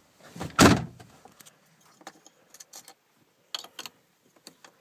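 A pickup truck door shuts about half a second in, followed by scattered light clicks and key jingles. No engine is running yet.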